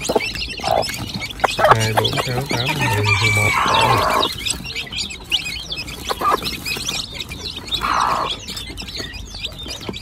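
A brood of chicks peeping constantly in many short, high cheeps, with the mother hen clucking now and then.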